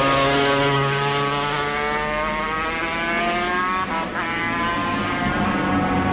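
Classic racing motorcycle accelerating away out of the bend, its engine note rising steadily, with a brief break in the note about four seconds in at a gear change.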